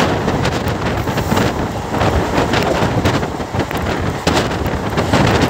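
Wind buffeting the microphone at the open window of a moving passenger train, over the steady running noise of the coach on the track.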